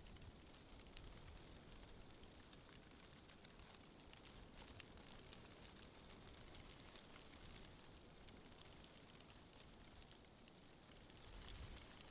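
Faint, steady wind ambience with a light scatter of small ticks and crackles. A low rumbling gust swells briefly near the end.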